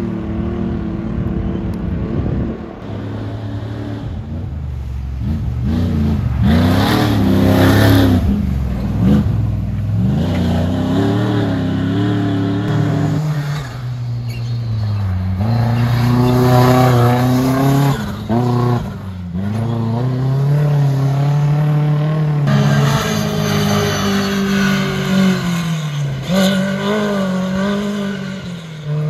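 Off-road race vehicles' engines revving hard as they power along a dirt course. The pitch climbs and drops again and again through gear changes, over several separate passes.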